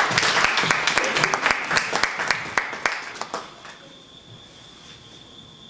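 A small audience applauding, with separate hand claps audible, dying away about three and a half seconds in.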